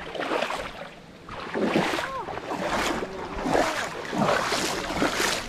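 Water sloshing and splashing in repeated swishes, roughly one every second, as from a body or a paddle moving through fairly deep water.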